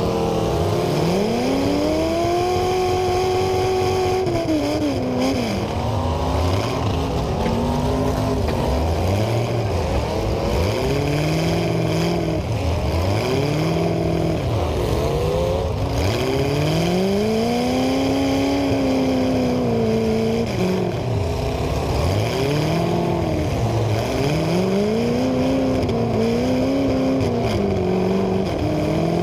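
Demolition derby cars' engines revving up and down again and again, several at once, in overlapping rises and falls.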